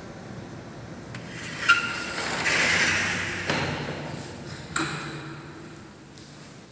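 A few sharp knocks and clanks, two of them with a short metallic ring, and a scraping rush lasting about a second and a half between them.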